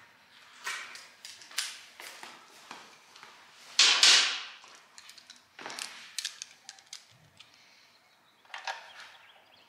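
Hand-tool handling noises: a loud scuffing rustle about four seconds in, then irregular light clicks and scrapes of a ratchet wrench being fitted to and turning the oil-pan bolts on a Toyota 2JZ engine block.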